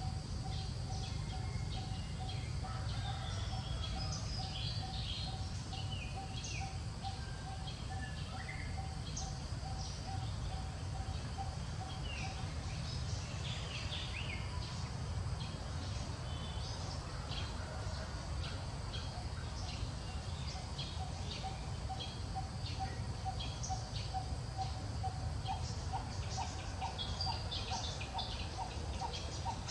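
Outdoor ambience of many small birds chirping and twittering over a steady low rumble, with a run of short repeated notes behind them that grows louder near the end.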